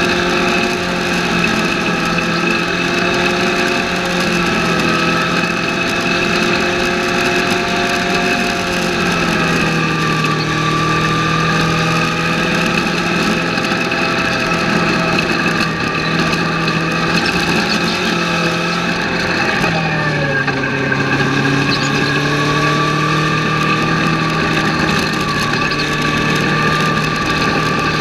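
A Legends race car's inline-four Yamaha motorcycle engine running hard at racing revs, heard from inside the cabin with road and wind noise. The pitch rises and falls gently through the corners, drops sharply about twenty seconds in, then climbs back steadily as the car accelerates again.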